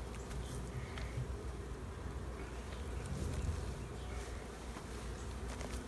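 Honeybees buzzing steadily around a nuc hive.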